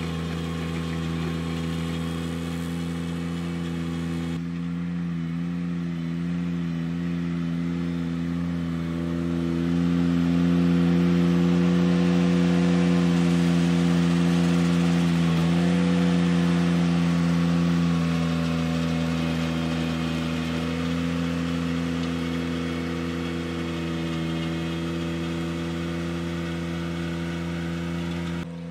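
Ventrac 4520 compact tractor's engine running steadily under load while its power rake churns through gravel and grass roots. It grows louder about a third of the way in and eases back again later.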